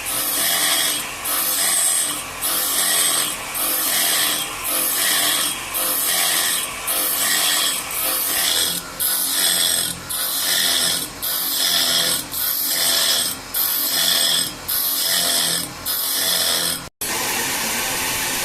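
A saw cutting through wood in steady back-and-forth strokes, a little more than one a second, each stroke a rasping 'chwain'. Near the end the strokes stop abruptly and a steady hissing noise follows.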